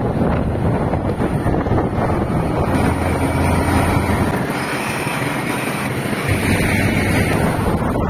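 Wind rushing over the microphone of a moving vehicle, over a steady low engine and road hum. The low hum eases a little about halfway through, then comes back.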